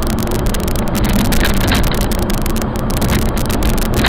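Car driving at road speed, with steady engine and road noise heard from inside the cabin through a dashcam's microphone. The recording is loud and full of constant crackling clicks.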